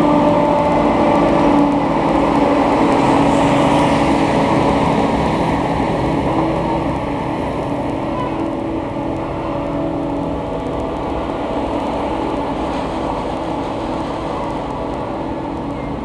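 Diesel engines of a Claas Axion tractor and a Claas Jaguar forage harvester running together in a steady drone, easing off gradually as the tractor and its container trailer pull away.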